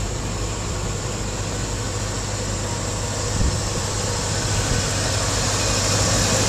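1997 Ford F-250 pickup's engine idling steadily, growing a little louder near the end.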